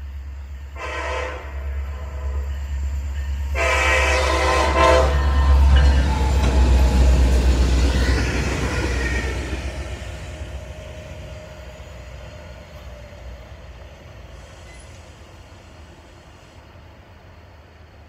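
Norfolk Southern light diesel locomotives (two EMD SD60Es and an EMD SD40-2) sounding the air horn, a short blast about a second in and a longer one around four seconds in, then passing with a loud low engine rumble that swells and slowly fades away.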